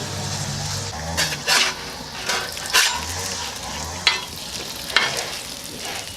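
Food frying on a cast-iron griddle, a steady sizzle broken by several sharp scrapes against the griddle.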